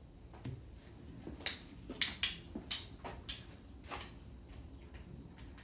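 Isopropyl alcohol being applied to and worked over a bare motorcycle handlebar: a quick run of short hissing strokes, about seven in two and a half seconds, starting about a second and a half in.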